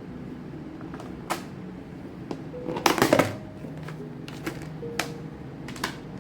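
Sharp clicks and knocks of objects being handled, the loudest a quick cluster of clatter about three seconds in, over soft background music.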